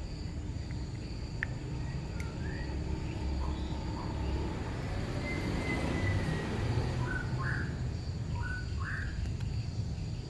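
Outdoor ambience: a steady high insect drone with a few short bird chirps, mostly in two pairs near the end, over a low rumble.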